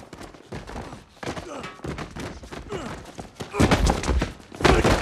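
Action-film fight sound effects: scattered sharp cracks and thuds, with two heavy impacts about three and a half and four and a half seconds in, as a body tumbles down stone stairs.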